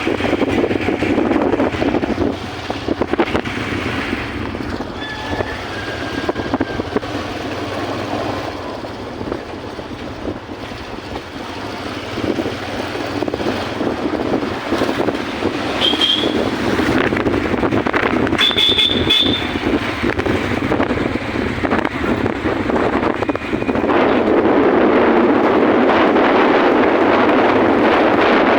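Steady vehicle rumble with wind on the microphone, with short high squeals about two-thirds of the way through; it grows louder near the end.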